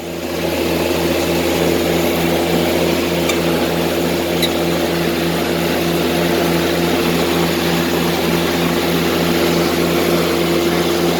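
White 2-135 tractor's diesel engine running steadily under load while pulling a hay baler, with a regular pulsing beat through the steady drone.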